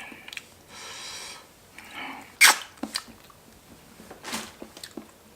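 A person with a runny nose from spicy soup sniffing and snorting hard through the nose. There is a hissy draw of breath about a second in, a sharp loud burst about two and a half seconds in, and another a little before the end.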